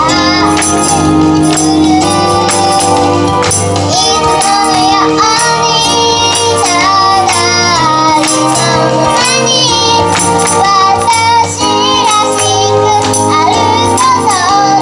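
A child singing a pop song over a backing track with a steady beat and sustained bass notes.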